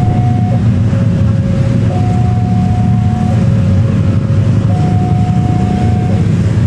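Railway level-crossing warning alarm sounding a two-tone signal, a higher and a lower tone taking turns, each held about a second and a half, warning that a train is approaching. A steady low rumble runs beneath it.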